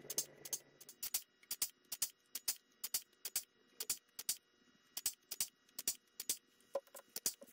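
Pneumatic rivet squeezer with a dimple die, cycled by a foot pedal as it dimples the rivet holes of an aluminium rudder skin: a quick, fairly even run of sharp clicks, many in close pairs.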